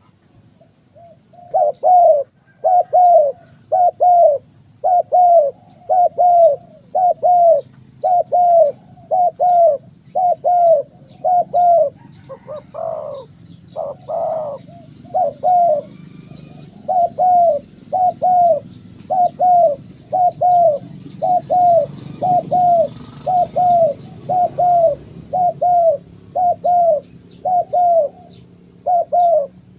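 Spotted doves cooing in a steady run of short paired notes, a little over one pair a second, with a couple of longer, louder notes about halfway. This is the bowing-coo display used by a cu gáy decoy bird.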